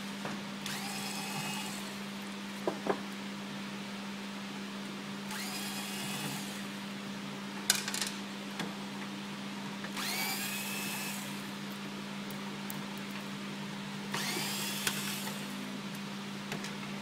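Cordless 3.6 V screwdriver running in four short bursts of about a second each as it backs out the formatter-board screws of an HP LaserJet 5500. Each burst is a motor whine that rises in pitch as it spins up. A few light clicks come between the bursts, over a steady low hum.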